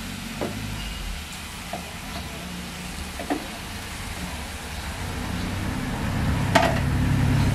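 Raw chicken tipped from a plastic tub into a hot wok of vegetables, with faint sizzling and a few light knocks. A low rumble underneath grows louder over the last couple of seconds, with a sharp knock near the end.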